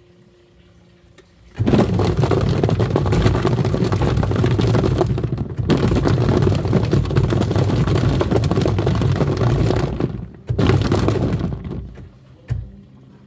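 Twin-tub washing machine's wash tub churning foamy water with hard plastic toy animals clattering against the tub. It starts about a second and a half in, breaks off briefly near the ten-second mark, runs again for a moment, then dies down.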